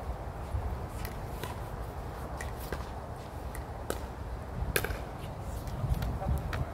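Pickleball paddles hitting a plastic ball in an irregular rally: sharp pops every half second to a second, some a little ringing, over a steady low rumble.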